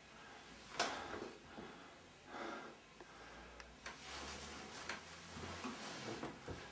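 A man breathing heavily in short, irregular breaths and sniffs, the sharpest intake about a second in.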